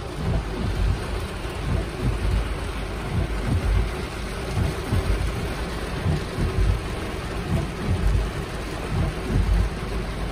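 Heavy rain falling on a car's roof and windscreen, heard from inside the cabin: a steady hiss over a dense, uneven low rumble.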